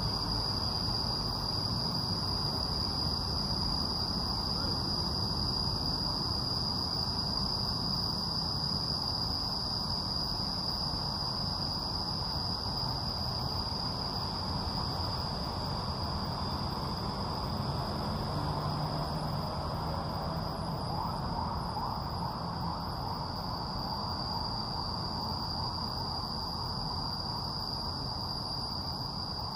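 Insects calling in one steady, unbroken, high-pitched drone, over faint low background noise.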